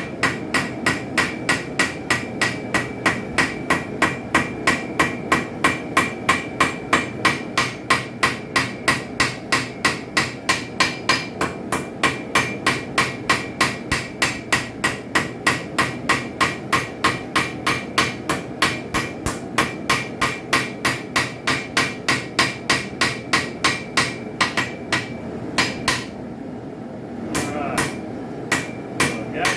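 Blacksmith's hammer striking hot steel on an anvil in a fast, steady rhythm of about three blows a second, each blow with a bright anvil ring. The blows are thinning out a railroad spike knife blade and hammering in its bevel. The rhythm breaks up into a few spaced blows and a short pause a few seconds before the end, then starts again.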